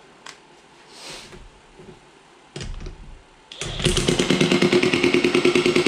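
A DeWalt DCF899P2 20V cordless 1/2-inch impact wrench starts about three and a half seconds in and hammers rapidly, with a steady whine, as it tightens a lock nut on a three-point hitch draft arm. A few light knocks come before it.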